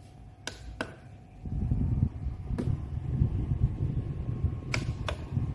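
Rechargeable circulator desk fan blowing air onto the microphone: a fluctuating low wind rumble that starts about a second and a half in, with a few sharp clicks scattered through.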